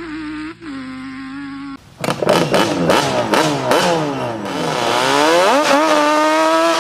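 Yamaha Banshee 350's twin-cylinder two-stroke engine running at a steady pitch, then, after a short break about two seconds in, revved hard in quick repeated blips that rise and fall with sharp cracks. It dips once more and climbs to a steady high rev near the end.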